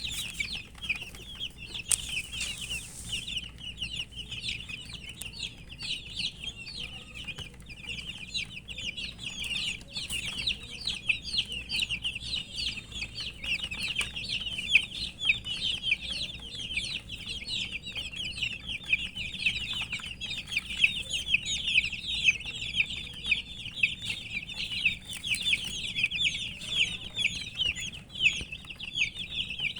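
A group of baby chicks peeping continuously, many short high chirps overlapping in a steady chorus, which the uploader puts down to thirst.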